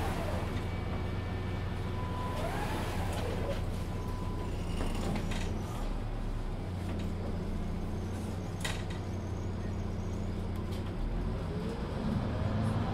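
Mercedes-Benz Citaro C2 Ü Hybrid city bus with a Voith automatic gearbox driving, heard from inside: a steady low drone with a few short whines that rise and fall in pitch, and a single click about two-thirds of the way through.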